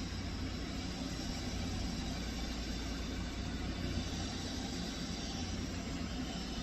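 Small electric fan running steadily: an even whir with a low hum underneath.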